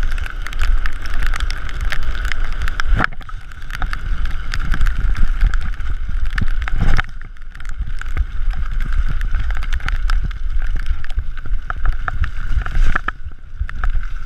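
Mountain bike descending fast over a wet, stony gravel trail: constant tyre roar and clatter of loose stones and the bike's parts, with wind buffeting the microphone. Harder knocks from bumps come about three and seven seconds in.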